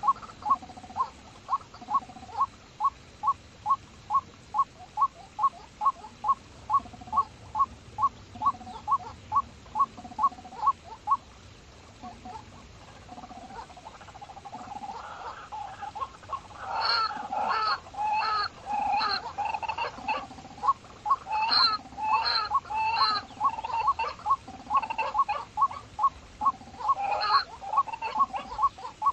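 An animal calling in a long, even series of short notes, about three a second, stopping after about eleven seconds; after a pause of about five seconds the calling resumes louder and denser, with a brighter, rougher tone.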